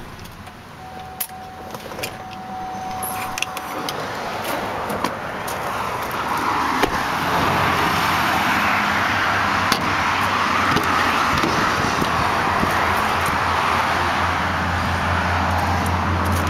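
Clicks and knocks from a pickup's door handle and latch as the door is worked, with a faint steady tone in the first few seconds. Under them a steady rush of passing highway traffic builds up and stays loud from a few seconds in.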